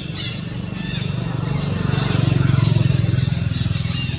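A motor vehicle's engine running close by, a steady low drone that swells to its loudest partway through.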